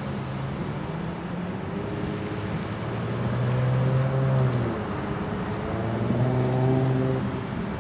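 Engine noise over a steady roar: its pitch climbs, drops sharply about four and a half seconds in, then climbs again.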